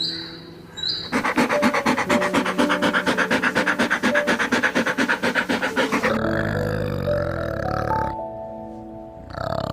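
An animal call of rapid, evenly repeated pulses lasting about five seconds, then a lower, drawn-out call, over background music.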